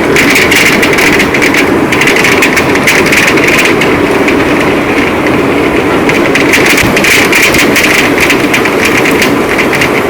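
Heavy rain falling steadily, a dense, loud patter of drops.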